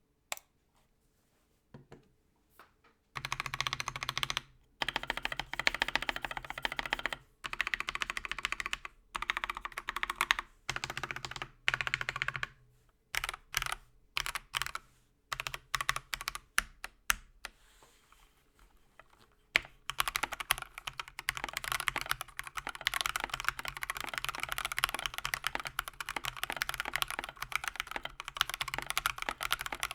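Typing on an Akko 3098B mechanical keyboard in stock form: keystrokes clattering in quick bursts separated by short pauses, a stretch of slower single key presses near the middle, then steady fast typing over the last third.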